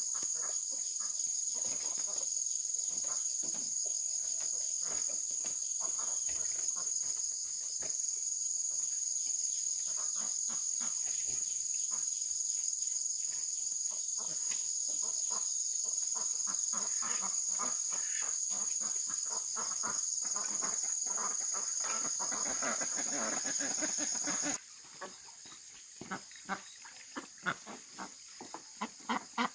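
A steady, high-pitched insect chorus, with irregular knocks and taps underneath. Near the end the chorus cuts off suddenly, leaving only scattered sharp knocks.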